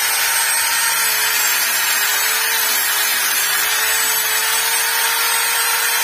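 Handheld electric angle grinder with a sanding disc running against the edge of a painted wooden panel: a loud, steady grinding noise over a constant motor whine that sags slightly in pitch about a second in as the disc bites, then recovers.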